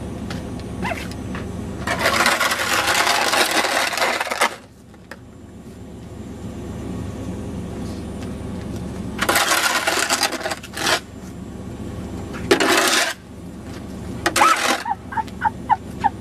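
Snow shovel scraping over snow-covered pavement in several pushes: one long scrape of about two and a half seconds, then three shorter scrapes later, over a steady low rumble.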